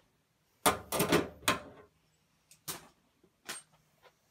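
Sharp knocks and clatter from riveting tools being handled against the aircraft's sheet-metal structure: a quick cluster of knocks about a second in, then two separate single knocks.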